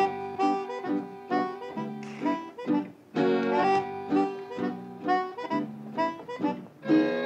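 Background music of short, detached notes in a steady rhythm, led by a reedy instrument.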